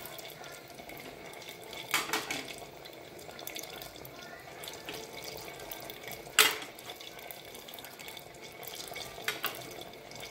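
Flour-battered bananas frying in hot canola oil in a lidded saucepan: a steady sizzle with a few sharp clicks, the loudest about six seconds in.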